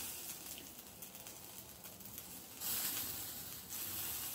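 Sausages sizzling on the grill rack of a small coal-fired Hexi stove, a faint steady hiss that grows louder for about a second near the end.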